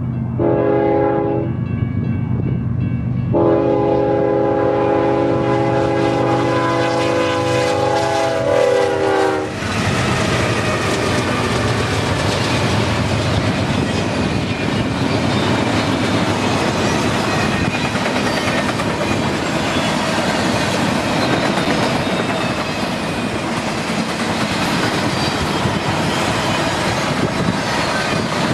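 Freight locomotive's multi-chime air horn: a short blast, then a long blast that sags slightly in pitch as the locomotive passes. After that, the rest of the train rolls by with steady wheel-and-rail clatter.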